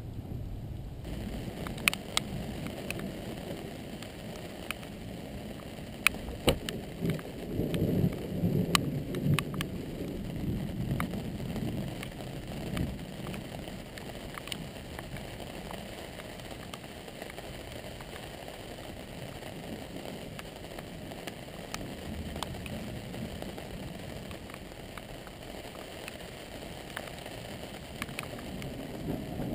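Rain falling steadily in a thunderstorm, with a low rumble of thunder swelling about eight seconds in and dying away a few seconds later. A few sharp clicks come in the first seven seconds.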